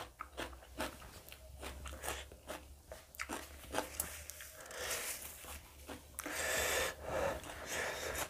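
Crunchy chewing of raw green chillies, with short sharp crunches every fraction of a second. About six seconds in comes a longer breathy rush of air lasting under a second.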